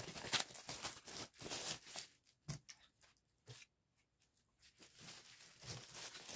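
Plastic shrink-wrap crinkling and tearing as it is pulled off a set of books. The crackling comes in bursts through the first two seconds and again near the end, with a near-silent gap in between and two soft thumps.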